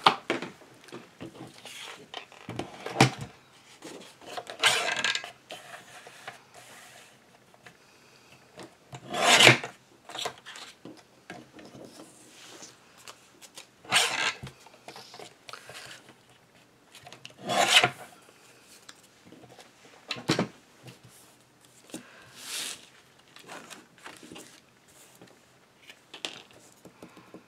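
Sliding-blade paper trimmer cutting red cardstock: about six cutting strokes, each lasting up to a second, with paper being shuffled and laid down between cuts.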